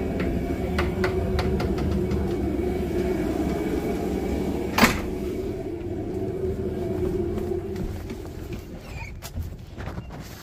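Vehicle engine idling steadily, with a few light clicks and one sharp bang about five seconds in. The engine sound fades over the last couple of seconds.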